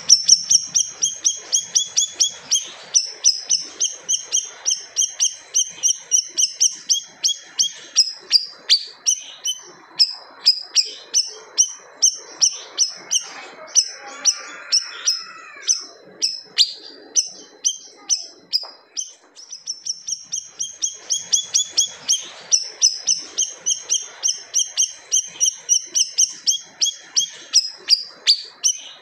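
A siri-siri songbird singing continuously: fast runs of sharp, high-pitched notes repeated about three times a second, in long bursts with short breaks.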